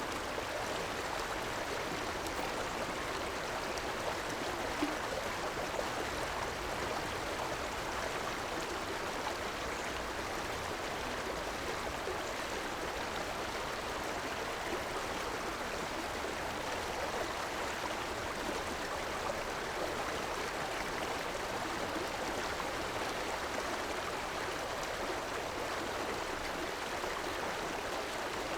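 Small river flowing steadily over rocks, a continuous even rush of running water.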